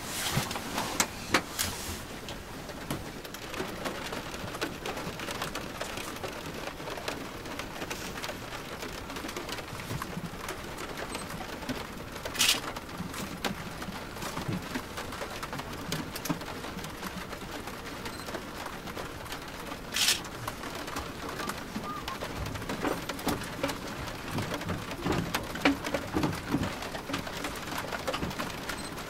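Rain pattering on the fuselage and windscreen of a LET L-410 turboprop standing with its engines stopped, heard from inside the cabin, with scattered sharp clicks and two louder ones near the middle.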